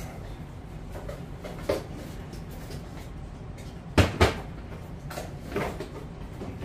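Handling knocks and clunks of reel boxes and gear being moved about on a workbench, with two sharp knocks in quick succession about four seconds in, over a steady low hum.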